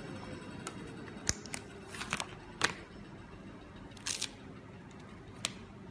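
Scattered sharp clicks and crackles as hands handle a sheet of gasket material and press masking tape onto a CNC cutting table, about a dozen irregular ticks. Under them a faint machine hum falls slowly in pitch over the first two seconds and fades.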